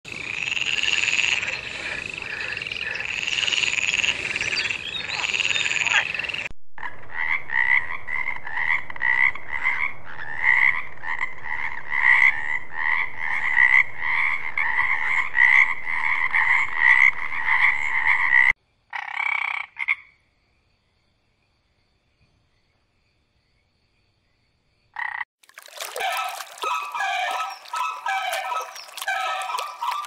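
Frogs croaking in two stretches: repeated calls, then after a break a long run of quick, evenly pulsed croaks. After about five seconds of silence, a flock of birds starts up with busy honking calls near the end.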